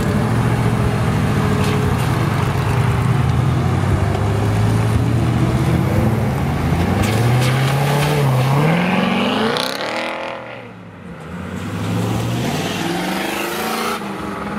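Cars pulling away from a car meet one after another: a Cobra-style roadster, a C7 Corvette convertible and a Pontiac Firebird Formula. A low, steady engine note comes first, then an engine revs up with rising pitch about six to nine seconds in. After a brief lull, another engine rises near the end.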